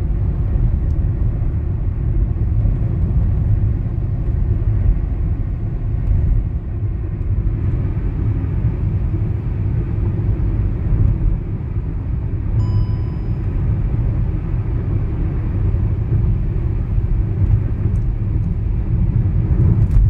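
Tyre road noise heard inside the cabin of a Hyundai Aura CNG fitted with Yokohama tyres, cruising at 80 km/h on a concrete highway: a steady low rumble. A short faint beep sounds a little past halfway through.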